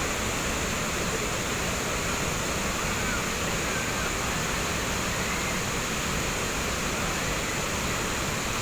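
Tegenungan Waterfall's falling water, a steady rush with no breaks.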